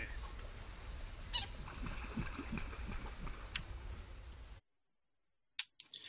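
Wetland bird soundscape built from field recordings: a steady low background hum with scattered bird calls. It cuts off suddenly about four and a half seconds in, followed by a couple of faint clicks near the end.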